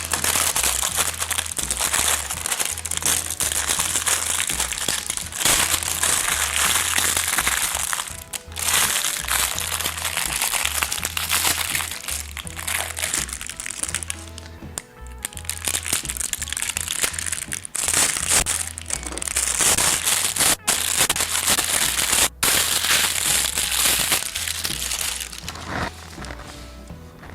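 Plastic packaging crinkling and crackling as it is pulled off a hose extension, with many sharp cracks, over background music.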